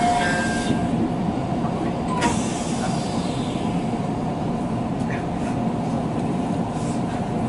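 Steady rumble and hum inside the front cab of a JR Tokaido Line electric commuter train standing at a station, with a faint steady whine. One sharp click comes about two seconds in.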